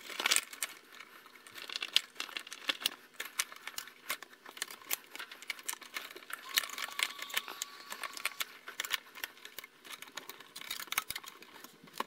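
Irregular crackling and small clicks as the wire harness of a new defrost thermistor is handled and routed along a fridge's aluminium evaporator coil, the wires rubbing and tapping against the coil.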